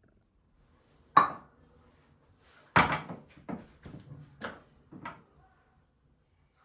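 Kitchen handling noises: a sharp knock about a second in, then a louder knock followed by four lighter clacks, like cupboard doors and dishes being handled.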